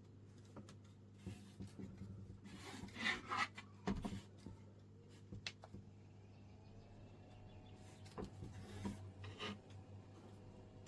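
Faint rubbing and scraping handling noises with a few short knocks, loudest about three to four seconds in, over a steady low hum.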